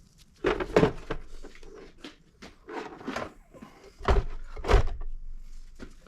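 Irregular knocks and clatter of hard objects being handled and set down, with sharp thumps about half a second in and twice more around four and five seconds in.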